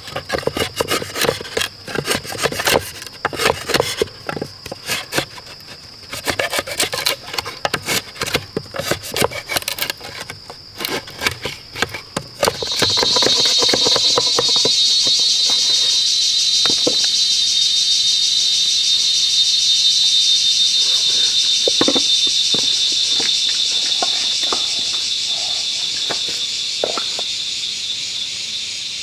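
Quick, dense scraping and rubbing strokes over a steady high insect buzz for about twelve seconds. Then a loud, even, high-pitched insect drone sets in abruptly and slowly fades.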